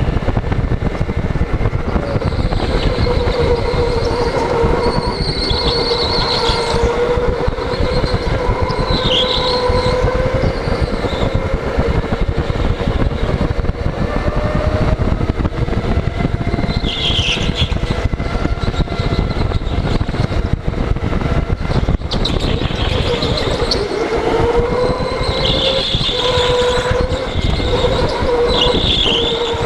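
Go-kart running flat out from the driver's seat: a dense rumble with a motor whine that rises and falls with speed, and short high tyre squeals several times through the corners.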